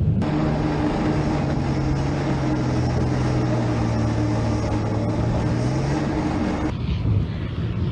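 Infantry fighting vehicle (BMP) running under way, heard from a camera mounted on its own hull: a steady, loud engine drone with a low hum that drops slightly in pitch about a second and a half in. Near the end the sound cuts off abruptly and gives way to a more distant rumble.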